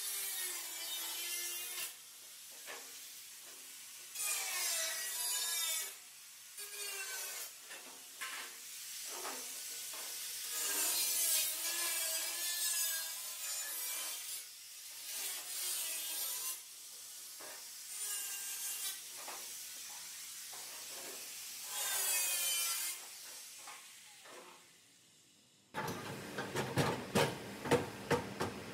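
A tool scraping and rubbing against a plastic bumper cover in repeated strokes a second or two long, with squeaky, wavering tones. Near the end it stops and a quick run of sharp clicks starts.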